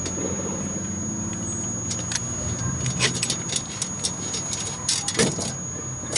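Metallic clicks and clinks from a refrigeration gauge manifold and hose fittings being handled, several of them from about two seconds in, over the steady low hum of a running machine.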